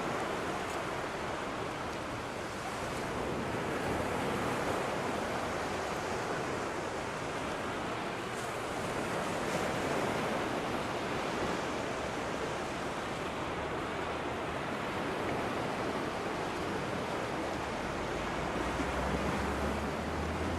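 Steady rushing wash of waves on a shore, rising and falling slowly in loudness. A low steady hum comes in near the end.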